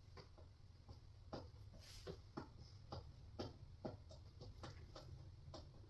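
Faint, irregular clicks and small knocks, about two a second, from a screw being driven by hand with a screwdriver into flat-pack cabinet parts.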